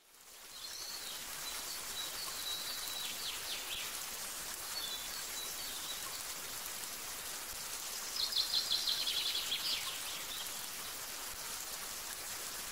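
Steady rain hiss with birds singing over it, fading in at the start. A few thin whistled calls come in the first few seconds, and a fast run of chirps about eight seconds in is the loudest part.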